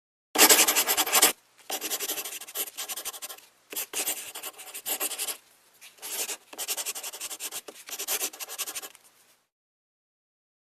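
Scratchy rubbing noise in several runs of one to three seconds, made of many fast fine strokes, with dead silence between the runs; the first run is the loudest.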